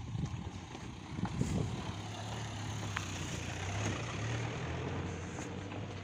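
A car engine running with a steady low hum that starts about two seconds in, swells slightly a couple of seconds later and then eases off.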